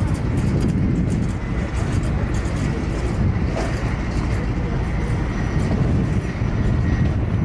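A de Havilland Canada DHC-2 Beaver floatplane's engine running steadily at high power as the aircraft races across the water on its takeoff run.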